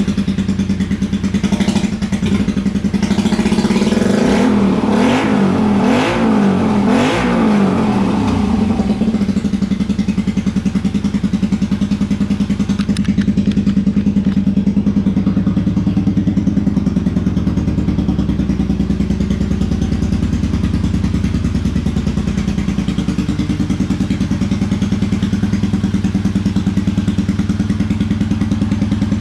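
Custom Honda Magna 250 chopper's V-twin engine, just started, revved several times in quick blips a couple of seconds in, then settling into a steady idle from about nine seconds on.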